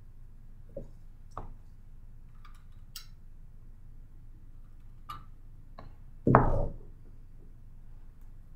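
Handling noises of a hot glue gun and a washcloth craft: several light clicks and taps, then one louder dull thump a little past six seconds in, lasting about half a second.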